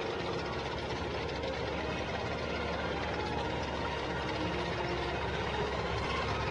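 A vehicle engine running steadily at idle.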